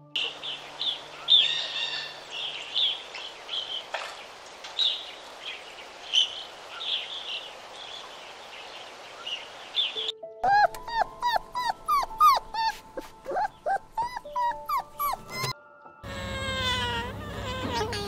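A small dog whining in many short, rising notes, a few a second, for about five seconds in the middle. Before it come ten seconds of scattered high chirps over a hiss, and near the end a few falling cries.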